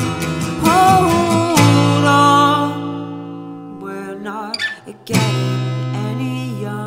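Gibson acoustic guitar strummed, one chord about a second and a half in and another about five seconds in, each left to ring and fade. A man sings held, wavering notes between the chords.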